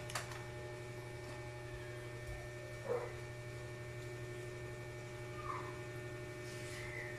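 Steady low electrical hum with a few faint steady tones above it, and one brief short sound about three seconds in.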